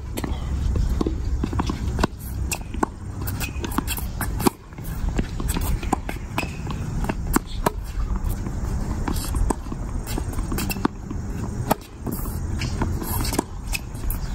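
Tennis rally on a hard court: a tennis ball struck by rackets and bouncing on the court, heard as a series of sharp pops at irregular intervals over a steady low rumble.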